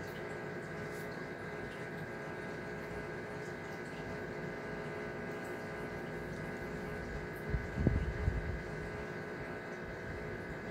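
Steady mechanical hum of reef aquarium equipment such as pumps, with a brief low bump about three-quarters of the way through.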